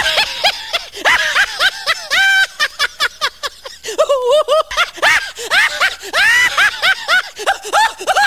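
A person laughing hard in rapid, high-pitched bursts of 'ha-ha' laughter, with a short lull about halfway through.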